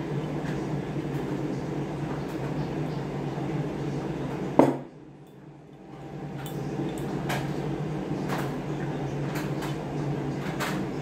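Scattered light clinks and taps of small hard objects over a steady low background hum. A loud knock comes about halfway through, after which everything goes muffled and quiet for a second or so before the hum returns.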